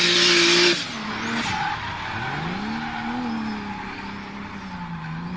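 A steady hiss with a low hum, the loudest part, cuts off under a second in. It is followed by a race-car engine sound whose pitch slowly rises and falls, with whooshing and skidding noise.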